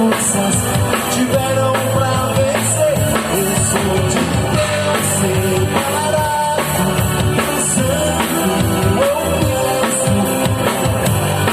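Live gospel band music with a drum kit and bass under a melodic lead line, played as an instrumental passage between sung lines.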